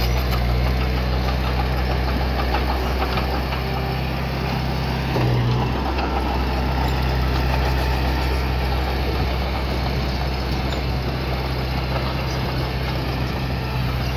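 A heavy-equipment diesel engine running steadily at low revs, with a brief rise in level about five seconds in.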